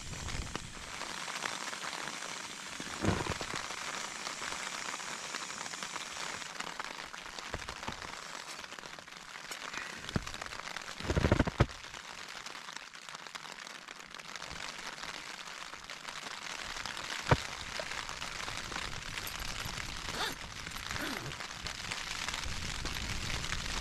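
Heavy rain falling steadily on a tent's fabric, heard from inside the tent. A few short knocks and a brief clatter of a camp cooking pot and mug being handled cut through it, the loudest a little before the middle.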